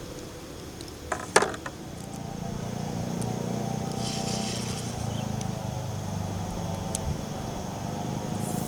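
A couple of sharp clicks about a second in, then a steady engine hum sets in and holds.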